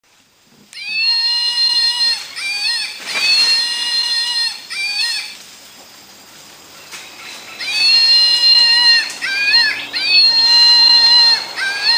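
A loud whistling animal call. Each phrase is a long held note of about a second and a half, followed by two or three short notes that rise and fall. The phrase is given twice, with a few seconds of forest background between.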